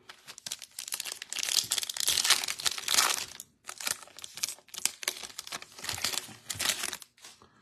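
Foil wrapper of a Bowman Chrome baseball card pack crinkling and tearing as it is opened by hand, in a run of dense crackles with brief pauses about three and a half and five seconds in.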